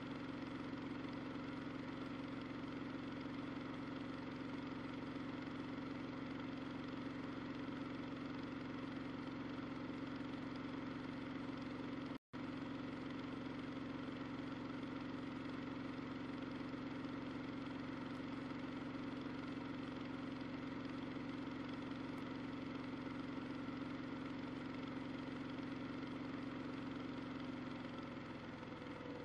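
Washing machine running mid-cycle, a steady motor hum with a strong low tone. Near the end the hum rises in pitch as the motor speeds up. A split-second dropout to silence about twelve seconds in.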